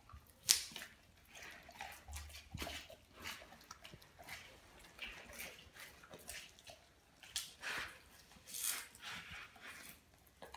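A Doberman chewing and tearing at a whole raw tilapia: irregular wet smacking and crunching bites, the sharpest about half a second in.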